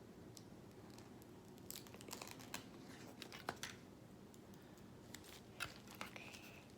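Faint, scattered clicks and brief crinkling of small objects being handled, over a quiet room.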